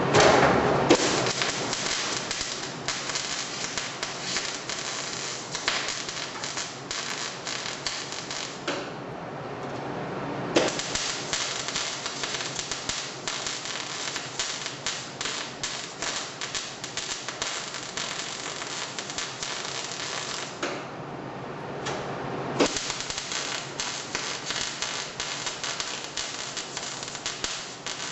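MIG welding arc crackling steadily as a bead is run on steel. The arc stops twice for a second or two, about a third of the way in and again about three quarters in, then strikes back up.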